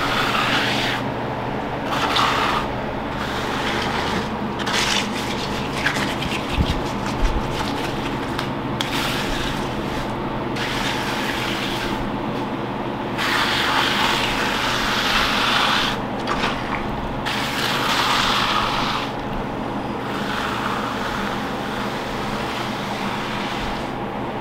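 A hand float sweeping over wet concrete, a wet rasping swish that swells and fades with each pass. A steady motor hum runs underneath.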